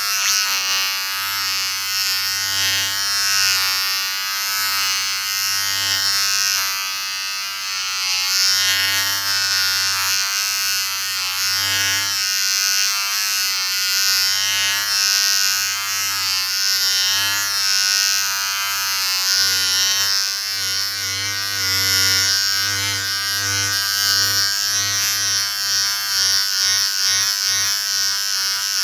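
Electric shaver running continuously with a steady buzz and a hiss on top, its pitch and level wavering slightly.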